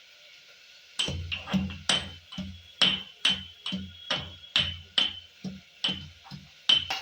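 Garlic cloves being pounded in a mortar with a pestle, about fifteen quick strikes at two to three a second, each a dull thud with a ringing clink. They start about a second in and stop just before the end.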